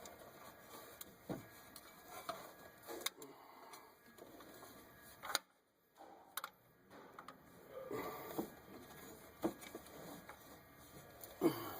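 Hand ratchet clicking, with scattered knocks of metal tools, as the engine is turned over by hand to walk a stretch-fit belt onto the power steering pulley. A brief quiet gap about halfway.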